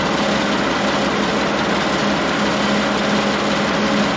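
Allis-Chalmers 180 tractor's six-cylinder engine idling steadily, running pretty smooth.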